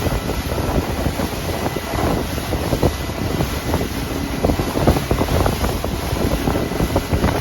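Loud, steady wind buffeting the microphone aboard a small fishing boat, a dense low rumble with constant flutter.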